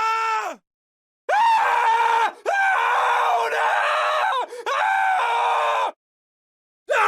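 Man screaming: one high scream ends with its pitch sliding down, then after a short silence a long scream of about four and a half seconds, broken by two brief catches for breath, and another scream starts near the end.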